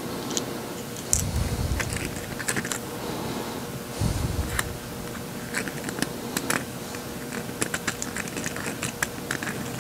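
A hand deburring tool scraping along the edges of a small metal strip, giving light, irregular metal-on-metal clicks and scrapes that come quicker near the end, with a duller bump about a second in and another about four seconds in.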